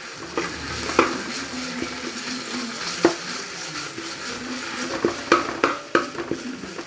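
Browned onions and ginger-garlic paste sizzling in hot coconut oil in an uruli while being stirred, with the spoon knocking and scraping against the pan about a second in, at three seconds, and several times near the end.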